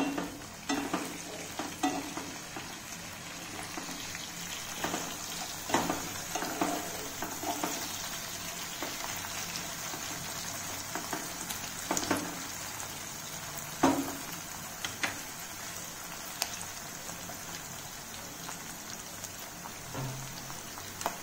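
Sliced onions and potato frying in hot oil in a kadai over a high flame, a steady high sizzle. A wooden spatula stirs them, knocking and scraping against the pan now and then, with a few sharp knocks standing out.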